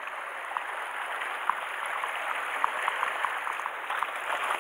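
Sea water washing and fizzing against the shore rocks: a steady hiss with scattered small ticks and drips.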